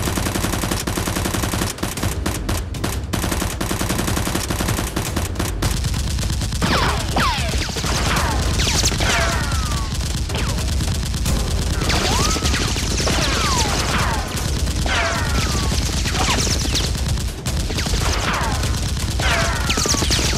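Sustained rapid gunfire, like automatic weapons firing in bursts without pause. From about six seconds in, high falling whistles recur every couple of seconds over the shooting.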